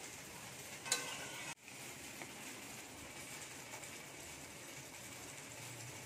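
Faint, steady sizzle of food frying in oil in a pan, with one sharp clink of a utensil about a second in. The sound drops out for an instant just after.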